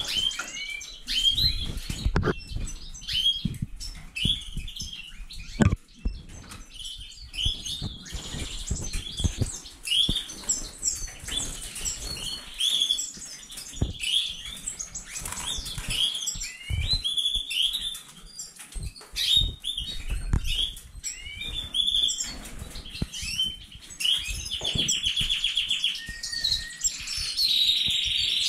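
Caged finches and canaries, goldfinches, Magellanic siskins and colour canaries, calling and chirping all through, with frequent wing flutters and soft knocks. About 25 s in, one bird gives a fast buzzy trill.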